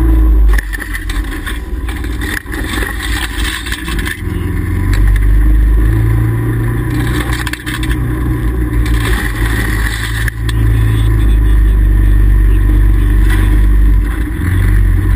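Can-Am Commander side-by-side's V-twin engine running as it drives through snow, over a steady rush of wind. The engine eases off about half a second in and picks up again about five seconds in and once more about ten seconds in.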